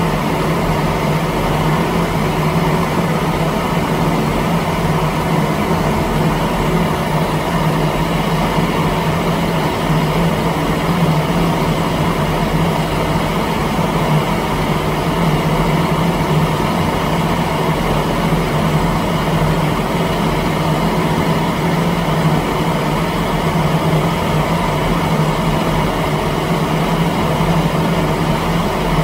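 Gas torch flame burning steadily against a painted board: a continuous rushing noise with a low hum beneath it, unbroken throughout.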